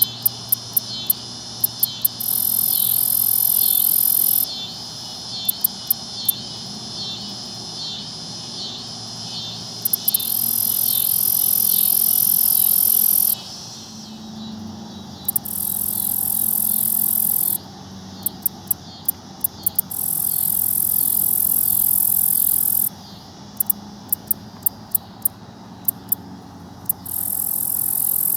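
Black-legged meadow katydid stridulating: runs of sharp, very high ticks, each followed by a long, loud high buzz of two to three seconds, the tick-and-buzz phrase repeating about five times.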